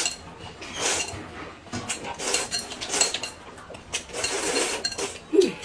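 Noodles and broth slurped from a bowl in several long pulls, with light clinks of chopsticks against the porcelain bowl.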